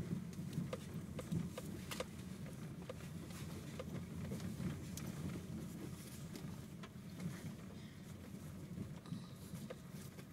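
Road noise inside a car driving on an unpaved dirt road: a steady low rumble with scattered small clicks and knocks from the tyres and body over the rough surface.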